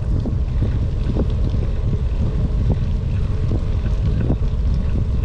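Wind buffeting the microphone of a camera mounted on a moving bicycle, a loud, steady low rumble, with scattered small clicks and knocks from the ride.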